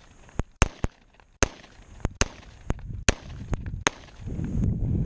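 Handgun shots fired one after another at irregular spacing over about four seconds, sharp reports that empty the gun, six rounds counted.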